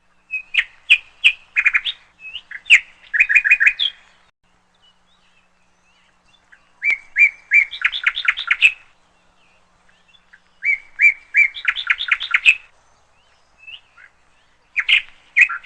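A songbird singing: four phrases a few seconds apart, each a handful of sharp chirps followed by a quick run of repeated notes.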